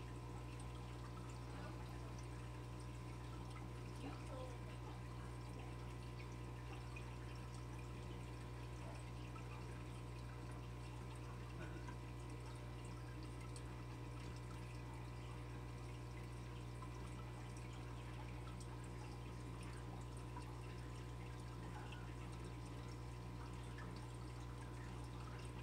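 Aquarium filter running: a steady low hum with water trickling and dripping.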